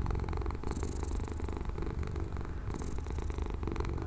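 Cat purring: a steady low rumble, with a breathy hiss coming in about every two seconds.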